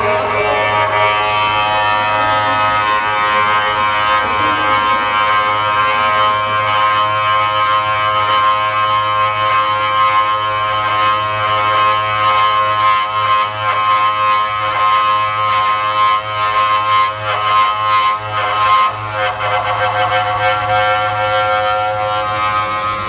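CNC drilling machine running, its motors giving a steady whine made of several held tones over a low hum; the tones shift in pitch about seventeen to twenty seconds in.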